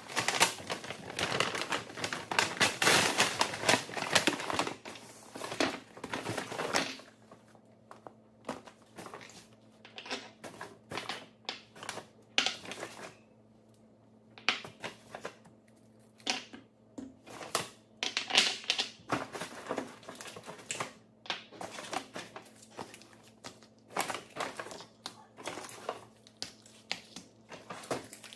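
Plastic packaging crinkling and small items clicking and knocking as a cupboard is cleared and restocked: dense rustling for about the first seven seconds, then scattered clicks and taps.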